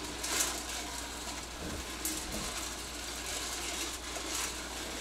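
Whirley Pop stovetop popcorn popper being hand-cranked, its gears and stirring arm turning the unpopped kernels in the aluminium pot with a quiet steady rattle. The kernels are still heating and none are popping yet.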